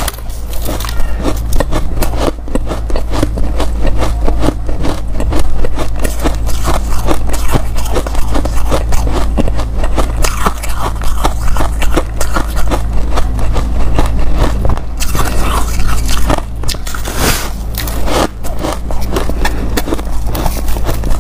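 Close-miked crunching of white powdery ice being bitten and chewed: many quick, crisp, irregular crackles.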